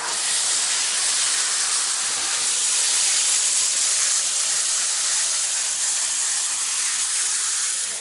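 Vacuum cleaner airflow: a steady, loud, high-pitched hiss that begins and ends abruptly.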